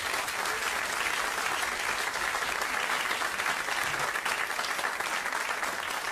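Studio audience applauding, many hands clapping at an even level.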